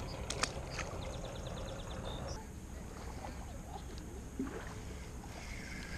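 Fishing reel handled and cranked: a couple of sharp clicks, then a fast even run of light ticks for about a second and a half, over a low steady rumble.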